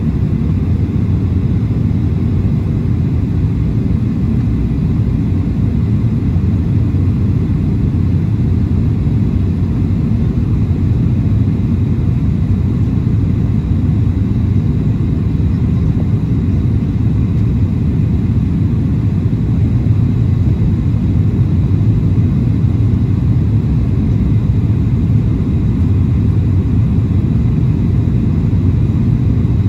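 Cabin noise of a Boeing 737-700 on final approach with its flaps extended: a steady low rumble of the CFM56 engines and the airflow over the airframe.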